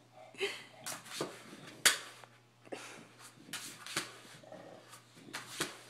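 Scattered sharp taps and clicks, about eight in all, from an English bulldog pawing at a laptop as it is being typed on. The dog's breathing is heard faintly between them.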